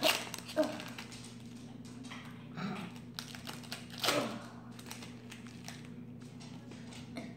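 Pokémon booster pack being opened: the foil wrapper crinkling and tearing and the cards being handled, a string of light crackles and clicks with a few louder ones at the start and about four seconds in.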